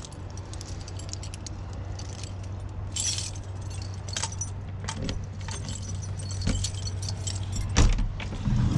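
Light metallic jingling and clicking, like keys or small hardware being handled, with a few knocks, over a steady low hum. Heavier low thumps come near the end.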